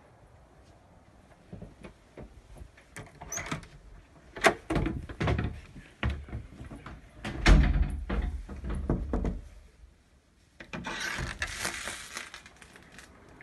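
Knocks, clicks and heavy thumps of handling and footsteps, then an interior door being opened, with a hissing rush lasting about two seconds near the end.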